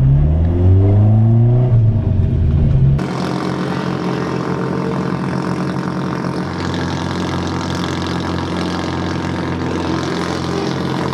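Toyota AE86 Corolla drift car's engine revving up and down. About three seconds in, the sound changes abruptly to the engine running steadily with only small changes in pitch near the end.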